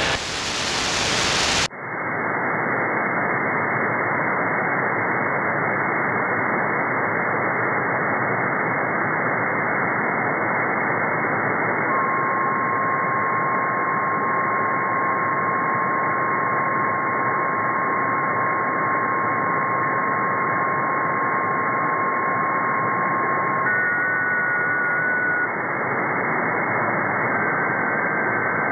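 Shortwave receiver hiss from an SDRplay RSP1A tuned across a quiet 10-metre band. A second or two of wide AM-mode static gives way to a narrower, duller upper-sideband hiss. About twelve seconds in, a steady whistle from an unmodulated carrier comes in and holds for about twelve seconds, then a few short higher tones pass, and another steady whistle starts near the end.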